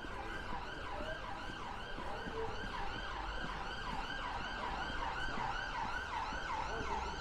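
Emergency vehicle siren sounding a fast yelp, about four rising-and-falling sweeps a second, held steadily.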